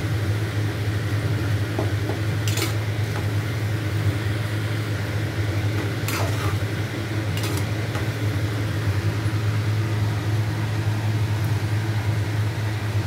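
Metal spoon stirring a thick curry in a metal pot, with a few sharp clicks of the spoon against the pot, over a steady low hum.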